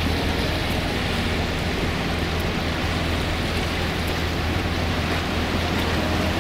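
Sailboat's auxiliary engine running steadily at high throttle, a low hum under a steady hiss of rushing, swirling water and wind as the boat is pushed through tidal rapids at full flow.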